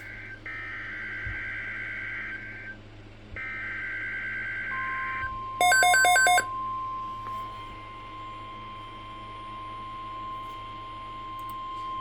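Emergency Alert System tones from a NOAA Weather Radio broadcast. Two buzzing, warbling SAME data bursts play in the first five seconds. Then the steady, shrill single-pitch warning alarm tone starts about five seconds in and holds. About six seconds in, a short burst of loud, rapid beeps is the loudest sound.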